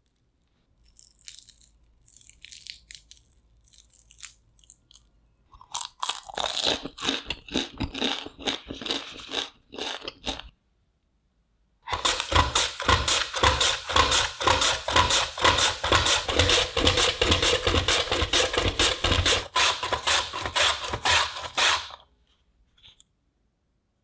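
A raw potato being pushed back and forth over a plastic julienne slicer's blades into a glass bowl, in fast, even grating strokes. There are two runs of it, the first starting about five seconds in, the second and louder one from about halfway to near the end. Before that, faint crackly crunches come from a crisp-fried shredded-potato ball.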